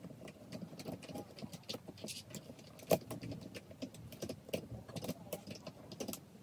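Hands working a ring light's tripod head and mount: irregular small clicks and rattles of the parts being fitted and turned, with one louder knock about three seconds in.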